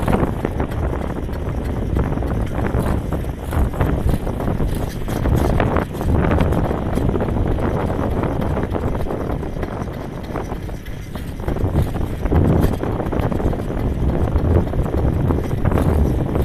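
Wind buffeting the microphone of a bicycle-mounted or handheld camera while cycling at speed, with many small knocks and rattles from the bike rolling over the path.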